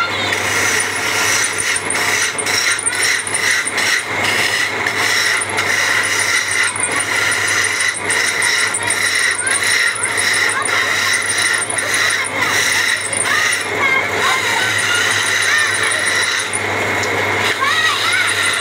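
Motor-driven wood lathe running while a hand chisel cuts into the spinning wooden charpai leg: a steady scraping cut over a low hum from the machine.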